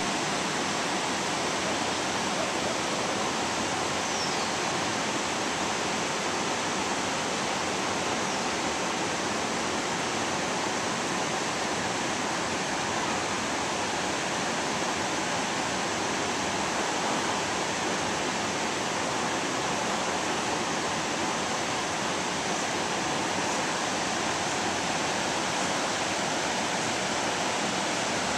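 Steady rushing noise, even and unbroken throughout.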